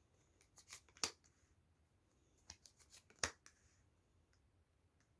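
A deck of tarot cards being shuffled and handled, giving a few faint sharp card snaps and light rustling, most of them in the first three and a half seconds.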